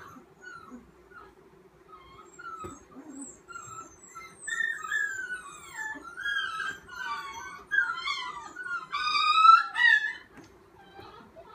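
Frightened puppy whining and crying in high, wavering cries that rise and fall in pitch, faint at first and growing louder from about four seconds in, loudest near the end. These are the distress cries of a fearful dog being cornered while a leash is put on it.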